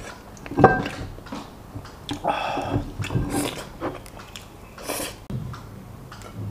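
A person eating rice and braised beef bone with chopsticks: chewing and mouth noises, with a few sharp clicks and knocks, the loudest about half a second in.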